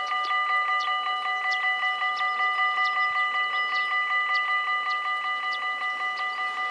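Electronic warning bells of a Dutch level crossing ringing in a fast, even pulse of about five strokes a second while the barriers lower: the warning that a train is approaching.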